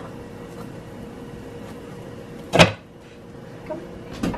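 A single sharp clack about two and a half seconds in, as a crisp waffle is lifted out of an electric waffle maker and set on a plate. Under it runs a faint steady hum.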